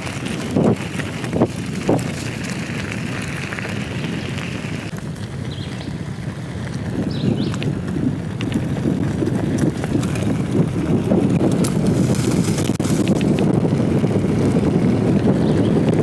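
Bicycle being ridden: tyres rolling and wind rushing over the microphone, a few knocks in the first two seconds, and the rush growing louder from about seven seconds in.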